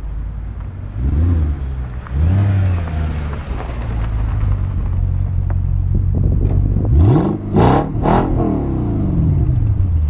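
Audi allroad 4.2 V8 engine and its twin exhausts with the cutoff valves open, running deep and loud. It is revved twice near the start, idles, then is blipped three times in quick succession about seven seconds in, each blip dropping straight back to idle.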